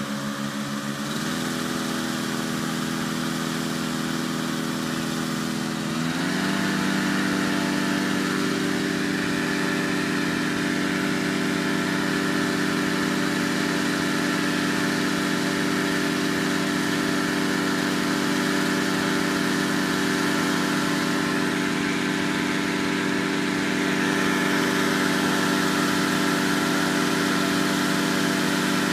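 Engine-driven inflator fan running steadily, blowing cold air into a hot air balloon envelope during cold inflation. Its engine speed steps up about a second in and again about six seconds in.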